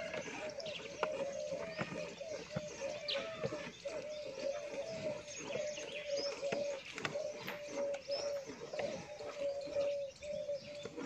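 Water buffalo being milked by hand into a metal pail: a quick steady rhythm of short squirts, about three a second, each with a brief ringing note.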